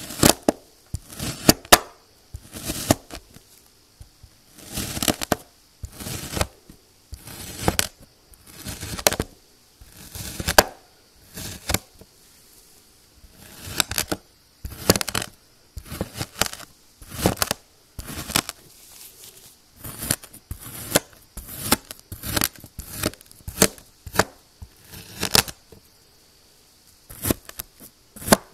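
Knife blade slicing through a packed slab of kinetic sand, cut after cut, each one a short crunch, roughly one a second.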